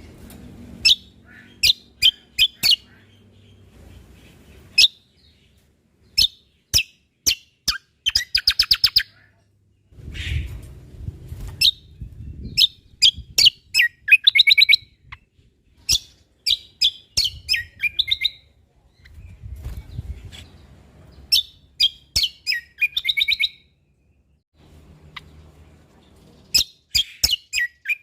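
Cucak kombo (kecial kombok) singing: loud, sharp, high chirps in quick clusters, broken by fast rattling trills about 8, 14 and 22 seconds in. A faint low rumble sits under parts of the song.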